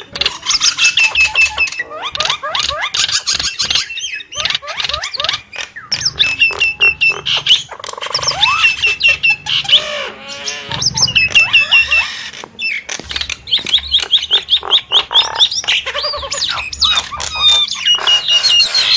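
Nias hill myna calling almost nonstop: quick strings of short, loud whistled notes, some rising and some falling, with harsher squawking calls around eight and eleven seconds in.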